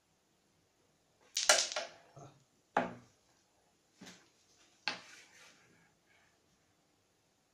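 Carrom striker being flicked across a wooden carrom board, clacking into the wooden coins: a run of sharp wooden clacks with short rattles after them, the loudest about a second and a half in, then three more roughly a second apart.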